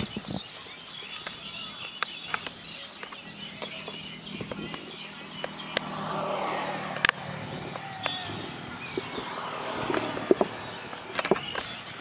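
Dry powdered bait poured from a plastic jar onto a steel plate, a soft hiss about six seconds in, amid scattered clicks and taps of the jar and plate being handled. Birds chirp faintly in the background.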